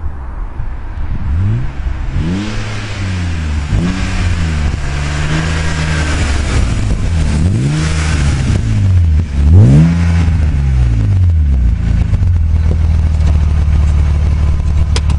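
BMW E36 328i's 2.8-litre straight-six engine revved up and down several times in quick blips, then settling to a steady idle for the last few seconds.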